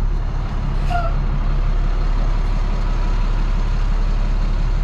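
Farm vehicle's engine running steadily, a low even drone under load.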